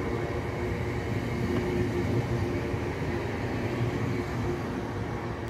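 West Midlands Railway Class 323 electric multiple unit running past along the platform: a steady rumble of wheels on rail with a thin humming tone that comes and goes, easing slightly near the end.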